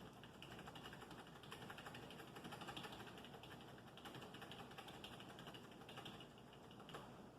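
Faint, rapid clicking of computer keyboard keys.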